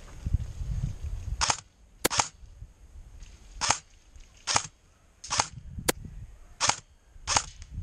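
Airsoft M4A1 rifle firing single shots: about eight sharp cracks at an uneven pace, after a low rumble in the first second and a half.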